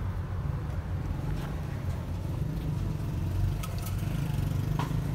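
Steady low engine rumble from vehicles running nearby, with a few faint clicks.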